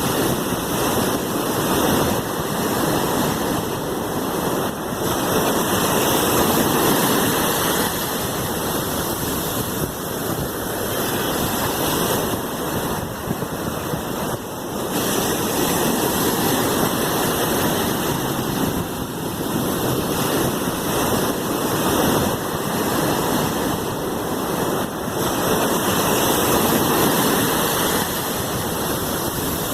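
Sea waves: a continuous wash of surf that swells and eases every few seconds.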